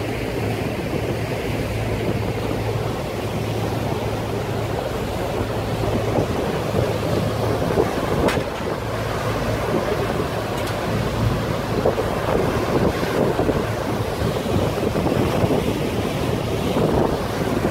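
River tour boat under way: water rushing in the churning wake and wind buffeting the microphone over a low, steady engine hum.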